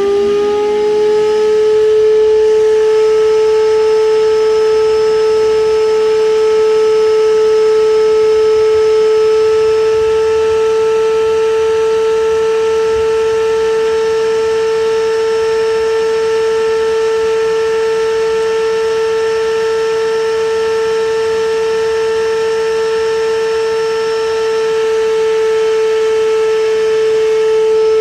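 Vacuum cleaner motor running at a steady, high-pitched whine just after spinning up to full speed, pulling suction through a hose on a glass filtration vessel.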